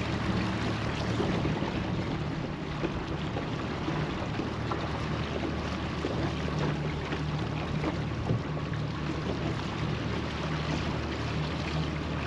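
Boat motor running steadily while trolling, a low even hum under a constant hiss of water and wind.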